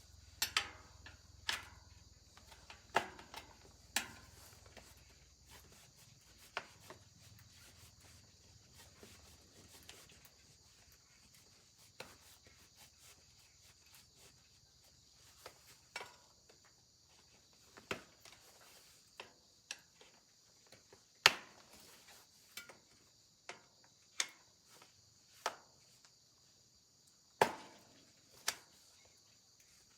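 Sharp clicks and knocks of hand tools on a bicycle under repair, coming at irregular intervals, the loudest about two-thirds of the way in. Crickets chirp steadily throughout.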